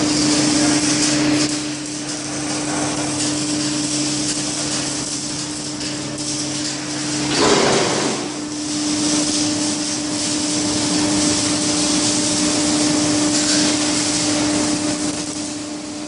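Industrial automatic carpet washing machine running: a steady machine hum over a high hiss, with a lower hum dropping out and a brief louder surge about seven and a half seconds in.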